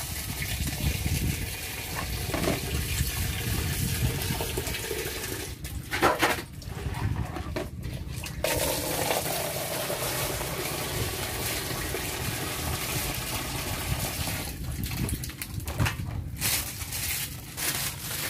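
Tap water pouring and splashing into a plastic basin, with a few short knocks about six seconds in and near the end.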